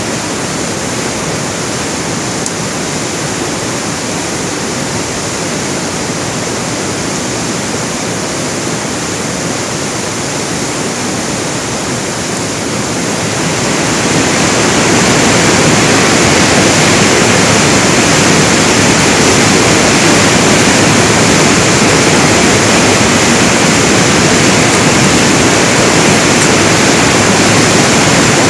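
Rushing water: a loud, steady rush that swells louder about halfway through and holds there.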